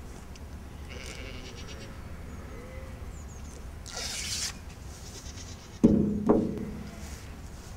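A ewe gives one loud, low bleat near the end. A short hiss comes a little before it.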